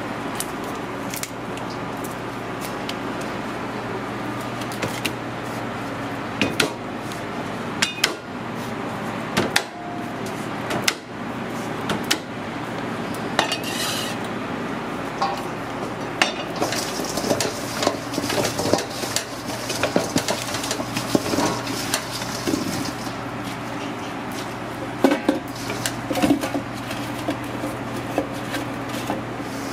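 Kitchen prep clatter: scattered clinks and knocks of a knife on a wooden cutting board and potato wedges being handled in stainless steel bowls and pans, over a steady low hum.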